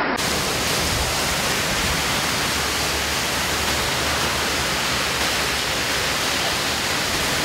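Steady, even rushing noise of torrential rain and fast-flowing floodwater, with no breaks or separate sounds.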